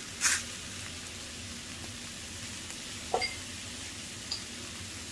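Sliced baby bella mushrooms sizzling steadily in hot olive oil in a nonstick skillet. About a third of a second in, a brief burst as a pinch of black Hawaiian salt lands in the pan.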